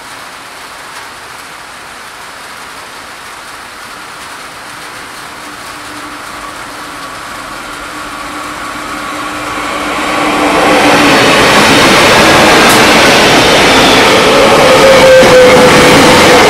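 Freight train led by Aurizon 6000-class diesel-electric locomotives approaching and passing: the locomotive sound grows steadily louder for about ten seconds, then, as the locomotives go by, the loud steady noise of the wagons rolling over the rails follows.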